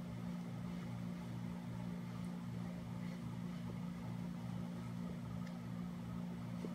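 A steady low machine hum with a regular throb, about three pulses a second.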